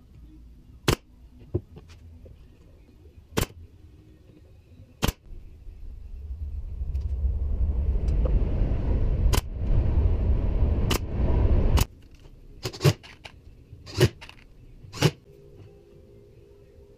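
Pneumatic nailer firing into plywood, a series of sharp single shots. In the middle a steady machine noise swells in, runs about six seconds and cuts off suddenly.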